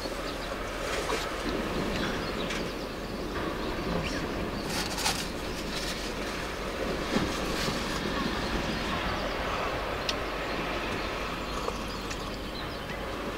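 Steady outdoor ambient rumble, with a few faint clicks and rustles of tableware and a paper napkin being handled.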